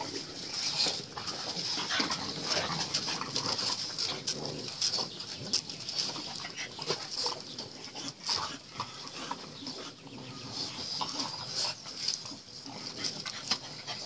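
French bulldog puppies snuffling and making small noises as they nose around a water-filled plastic paddling pool: many short, irregular sounds over a steady high-pitched hiss.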